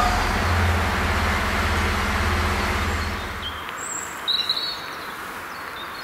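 A passing train moving away: its rumble and rail noise fade out over the first three and a half seconds. A bird chirps a few times about four seconds in.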